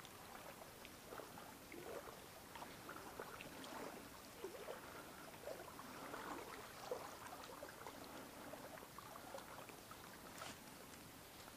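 Faint, irregular sloshing and trickling of shallow river water, with a few small ticks.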